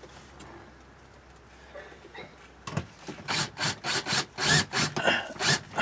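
Short rasping scrapes, repeated about three times a second, starting nearly three seconds in after a quiet stretch.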